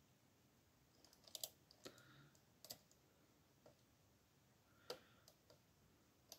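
Faint, irregularly spaced metallic clicks and ticks of a dimple pick and tension tool working the pins and sliders inside a Yale TS007 euro cylinder lock, with a small cluster about a second and a half in and a sharper click near five seconds.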